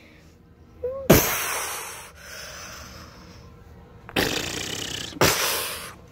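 A child making toy-battle sound effects with his mouth: a short rising blip, then a sudden hissing blast that dies away over about a second, and two more hissing blasts near the end.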